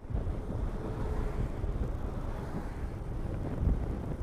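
Wind buffeting the microphone on a moving motorcycle, a rough low rumble of riding noise, with a heavier low thump a little before the end.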